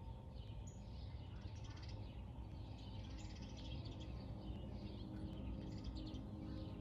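Songbirds chirping and twittering in quick high bursts that come again every second or so, over a steady low background hum.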